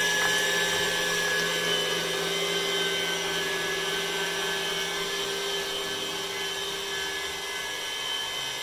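KitchenAid stand mixer running steadily, its wire whip beating egg whites and sugar in a stainless steel bowl, with a constant motor whine. The whites are nearing soft peaks.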